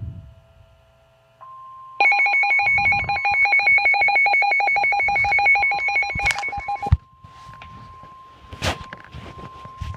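A telephone bell rings with a rapid trill for about five seconds and cuts off abruptly. It sits over a faint steady tone that steps up in pitch shortly before the ring. After the ring comes a jumble of noise with a sharp click.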